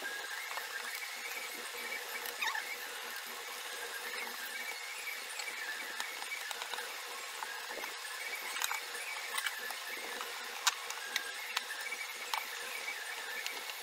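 Scattered light clicks and taps from a screwdriver and hands handling a mixer grinder's plastic base, over a faint steady hiss with wavering high squeaky tones.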